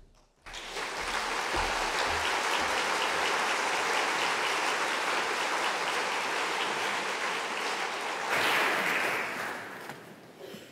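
Audience applauding a speaker, a dense even clapping that starts about half a second in, holds steady, swells briefly about eight seconds in and then fades away near the end.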